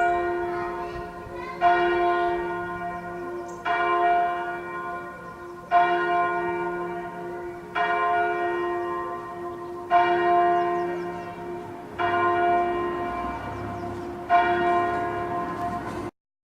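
A single church bell tolling, struck about every two seconds with the same note each time, each stroke ringing on and dying away before the next. The sound cuts off suddenly near the end.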